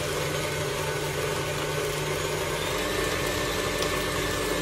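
Electric mixer motor running steadily, beating a molasses cake batter.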